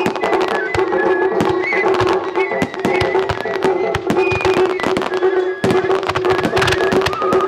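Fireworks bursting and crackling in rapid, irregular succession over loud music with a held tone. It is a music-synchronised creative fireworks display.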